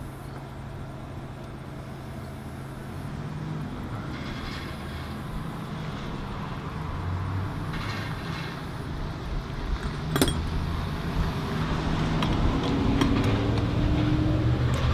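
Hands handling a power steering pump and its metal high-pressure line under the hood: rustling and small knocks, with one sharp metallic click about ten seconds in. A steady low hum underneath grows louder toward the end.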